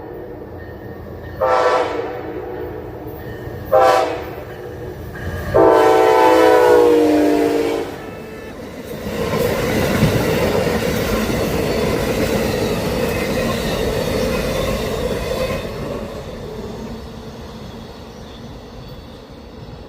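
Amtrak passenger train's locomotive horn: two short blasts, then a long chord that drops in pitch as the locomotive passes. It is followed by the loud rush of the train going by at speed, fading as it moves away.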